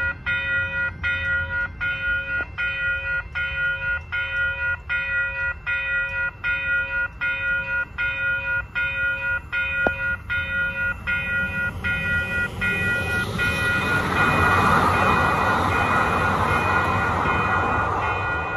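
Level-crossing warning bell ringing in a steady, even rhythm of about two strokes a second. About 13 seconds in, a CTrain light rail train passes over the crossing: the rush of its wheels on the rails swells over the bell and eases off near the end.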